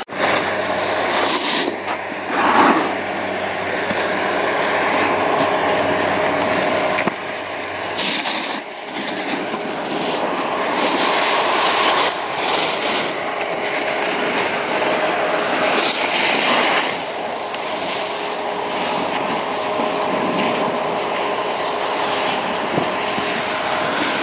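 Continuous rushing and scraping of skis sliding and edging over hard-packed snow. The noise swells every few seconds, with a faint steady hum underneath.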